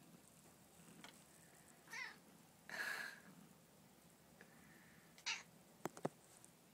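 A cat meowing in short calls: a brief high mew about two seconds in, a longer, rougher call just after it, and another short rough call about five seconds in. Two sharp clicks follow near the end.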